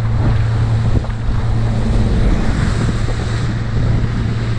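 Yamaha 100 hp outboard on a 2008 Coast Runner 490 running steadily at speed, a constant drone under wind buffeting the microphone and water rushing past the hull.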